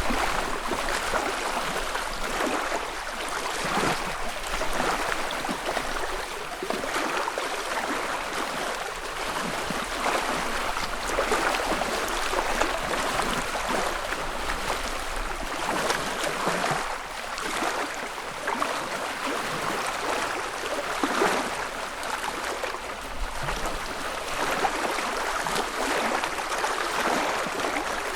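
Small lake wavelets lapping against the shore: an irregular run of soft splashes and gurgles over a steady wash of water.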